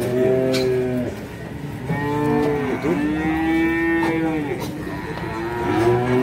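Calves mooing in a pen: four long calls, some overlapping at different pitches as more than one animal calls.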